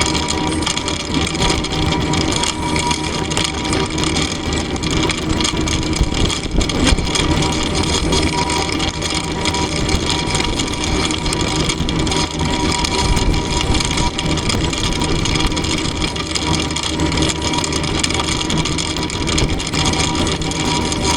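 Mini excavator engine running steadily under work, with no break or change.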